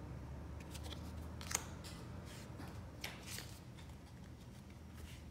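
Tarot cards being handled: a few short, soft clicks and slides of card stock as one card is laid on the stack and the next is picked up, over a faint, steady low hum.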